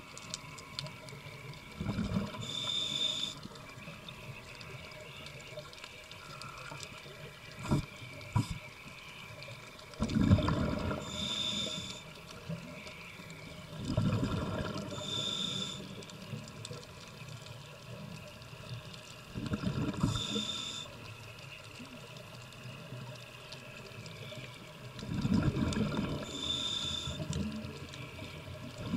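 Scuba diver's regulator breathing underwater: five breaths at irregular intervals, each a short hiss of inhaled air and a rush of exhaled bubbles. Two short knocks come about eight seconds in.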